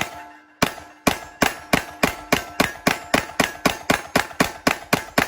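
Glock 9mm pistol firing a rapid string of single shots from a 33-round magazine, about three shots a second after the first few, each shot ringing out briefly.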